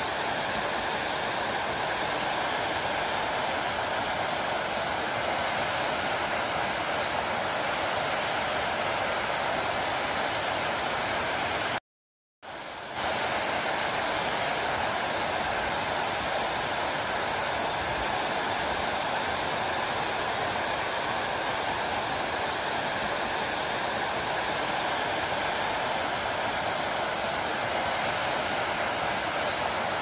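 Waterfall cascading over stepped rock ledges, a steady rushing of falling water. The sound drops out completely for about half a second around the middle and comes back a little quieter before returning to full level.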